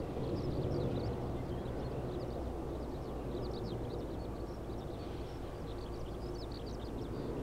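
Korean Air twin-engine jet airliner passing overhead, its engines a steady low rumble. Small birds chirp in quick runs over it.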